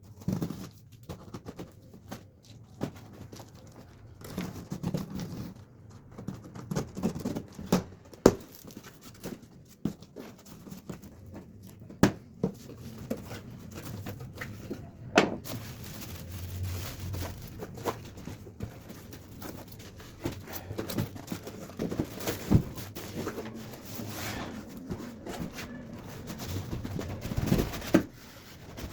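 Irregular clicks, taps and knocks with some rustling between them, as of small parts and packaging being handled.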